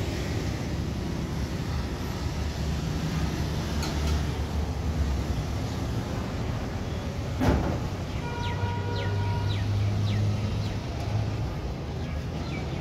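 Street ambience: steady traffic rumble, with a vehicle's engine close by between about eight and eleven seconds in and a single sharp knock about seven and a half seconds in.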